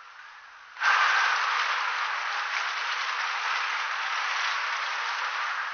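Heavy rain falling in a steady downpour. It comes in suddenly loud about a second in, then holds even.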